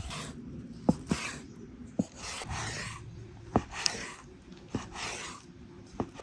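A kitchen knife cutting food on a wooden board: sharp knocks at an irregular pace of about one a second, with scraping swishes of the blade between them.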